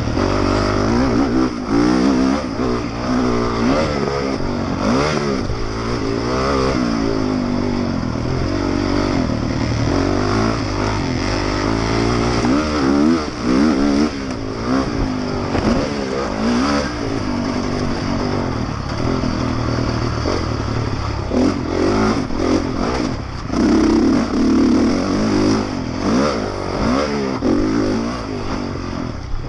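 Honda motocross bike's engine heard close up from the rider's helmet, revving up and dropping back again and again as it goes through the gears at race pace. Knocks and clatter from the bike over the bumps come through now and then.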